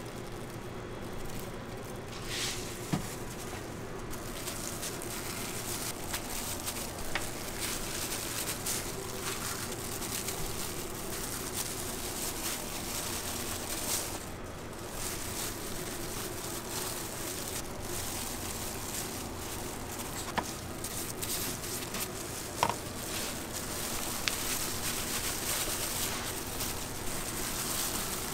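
Steady kitchen background hiss, with a few soft handling sounds and sharp taps as kimbap fillings are laid on seaweed and rice and rolled by gloved hands on a plastic cutting board.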